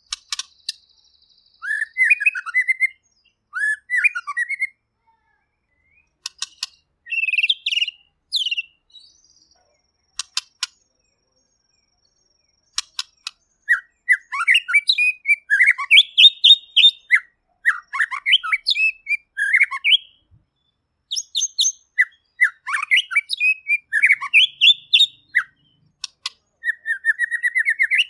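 White-rumped shama (murai batu) singing clear, varied whistled and warbled phrases, separated by short pauses, with sharp clicks in between. Near the end comes a quick, evenly spaced rattling trill.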